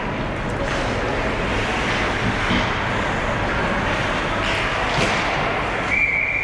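Ice hockey game noise in an echoing rink: a steady wash of skates, sticks and crowd, with a few sharp knocks and a short high steady tone near the end.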